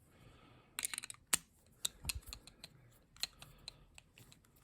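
Small irregular metal clicks and taps of a lock pick and tension wrench working the five pin stacks of a Ruko ASSA Abloy pin-tumbler lock. The loudest click comes about a second and a half in.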